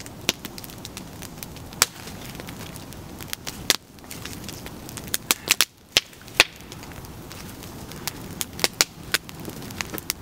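Freshly caught campfire of stacked sticks crackling, with sharp, irregular pops and snaps. Some come several a second, over a steady background hiss.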